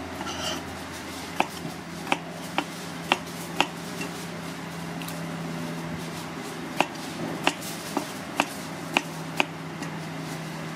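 Kitchen knife chopping on a plastic cutting board: two runs of sharp strikes, about two a second, five in the first run and six in the second, with a pause between them.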